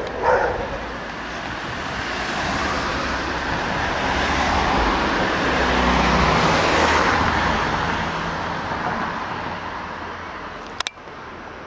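A car passing close by: its tyre and engine noise swells to a peak about halfway through, then fades away. A short loud sound comes right at the start, and a sharp click comes near the end.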